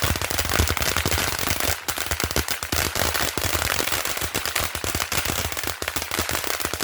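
Firecrackers going off in a rapid, unbroken crackle of sharp bangs.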